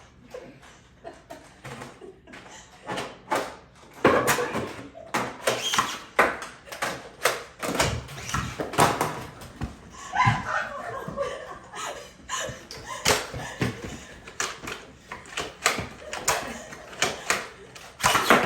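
Irregular clicks, knocks and thuds of a Nerf battle: foam-dart blasters firing and darts hitting walls and furniture, with bursts of voices.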